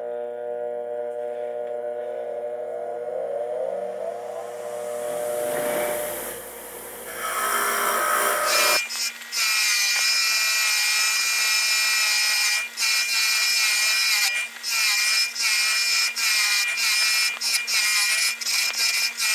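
Bench motor spinning a brass wire wheel: first a steady hum of several tones whose pitch slides around five seconds in. About nine seconds in it changes suddenly to a louder rasping scrub with a steady whine as the wheel brushes rust and residue off the steel head of an antique adjustable wood spade bit, with brief breaks as the bit is lifted away.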